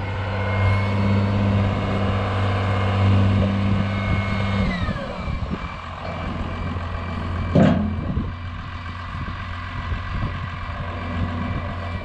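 Farm tractor engine running under load, then throttling back about five seconds in with a short falling whine. A single loud thump comes a couple of seconds later, with the tractor still running.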